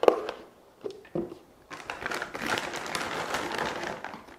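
A single sharp knock, then a plastic bag of frozen blueberries crinkling as it is handled and opened, from about two seconds in.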